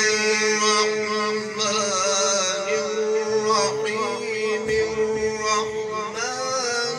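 A male Quran reciter's voice in melodic, chanted recitation (tajweed), drawing out long notes that waver and bend in pitch.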